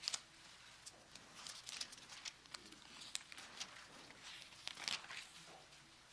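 Thin Bible pages being leafed through: faint, scattered crisp flicks and rustles of paper, a little louder about three and five seconds in.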